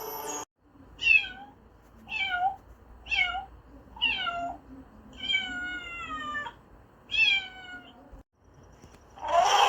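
A domestic cat meowing six times, each meow falling in pitch, the fifth one drawn out longer than the rest. Near the end a louder, rougher sound of another kind starts.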